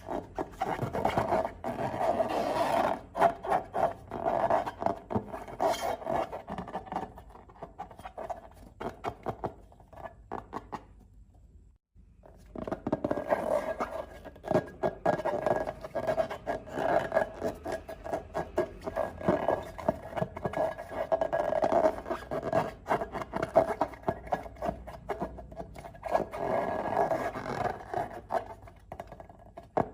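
Hands working balloons and slime, giving irregular rubbery scraping and squishing strokes. The sound breaks off for about a second near the middle, then carries on.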